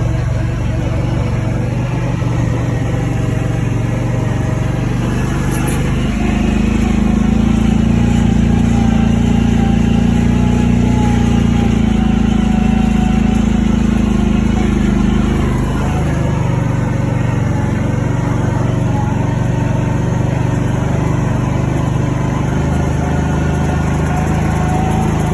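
Small vehicle engine running steadily while being driven. Its note rises and works harder from about six seconds in, then drops back near sixteen seconds.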